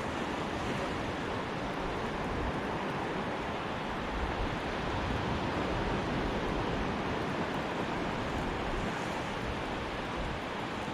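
Surf washing onto a beach: a steady, even wash of waves with no single breaking crash standing out.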